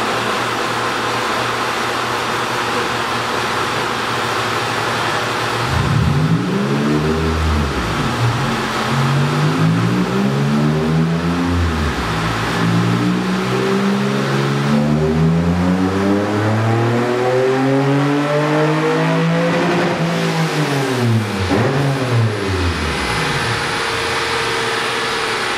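Second-generation Toyota MR2's engine on a chassis dynamometer. After several seconds of steady background noise, the revs rise and fall twice in quick succession, then climb steadily for about seven seconds in a dyno power run before falling back near the end.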